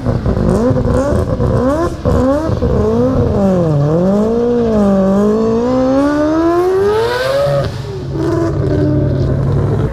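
Turbocharged Mazda 26B four-rotor rotary engine in an RX7 being revved: a run of quick throttle blips, then a deeper dip and one long climb in pitch, before it settles to a steady idle near the end.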